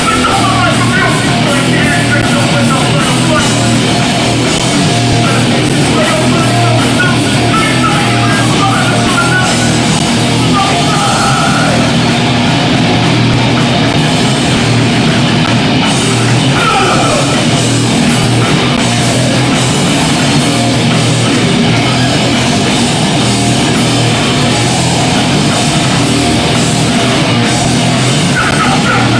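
Hardcore punk band playing live, loud and unbroken: distorted guitar, bass and drums, with vocals at times.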